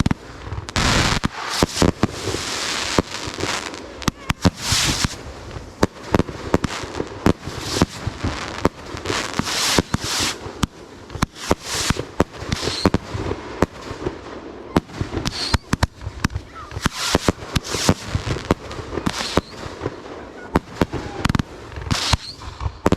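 Fireworks going off in quick succession: sharp bangs and pops come several times a second, with crackling and hissing between them.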